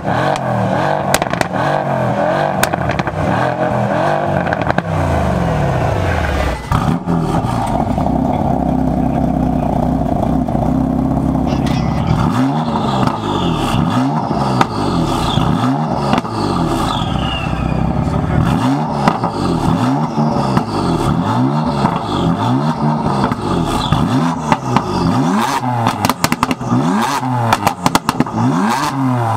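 Two performance cars revved at their exhausts. First a black Mercedes-Benz sedan on quad tailpipes, its engine pitch rising and falling. Then a BMW M4's twin-turbo inline-six revved in repeated quick blips about every second and a half, with pops and crackles from the exhaust on each blip.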